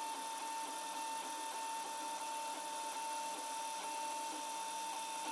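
Protomaker Black Sprint 3D printer laying down its first layers, its motors giving a steady high whine over a soft even noise.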